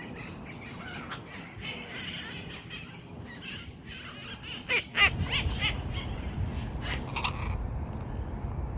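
A flock of red-masked parakeets (cherry-headed conures) squawking and chattering, with many short harsh calls and a loud burst of calls just before halfway. About five seconds in, a steady low rumble joins underneath.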